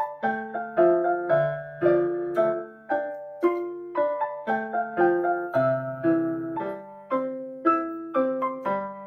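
Digital keyboard with a piano sound played with both hands: a melody of struck notes about every half second over lower notes, each note fading after it is played.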